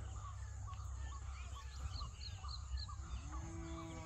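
White-breasted waterhen (dahuk) calling: a long run of short, evenly repeated notes, about three a second, the lure call used to draw waterhens into nets. About three seconds in, a lower drawn-out call joins and falls in pitch at its end.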